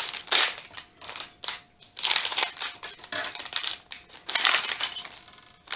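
Minifigure blind packet being crinkled and torn open by hand, in irregular bursts of rustling and crackling.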